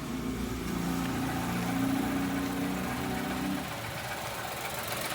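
Chevrolet Onix's three-cylinder engine idling with the brake pedal released, a steady low hum running over it that cuts off about three and a half seconds in.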